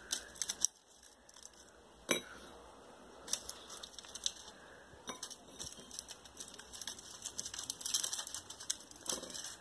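A foil wrapper crinkling as wafer rolls are pulled out of it and set down on plates, in scattered small clicks and crackles, with a sharp knock about two seconds in and a denser crinkling near the end.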